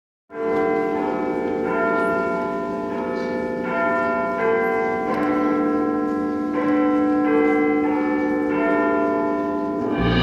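Church bells ringing, overlapping long tones that shift to new pitches about once a second.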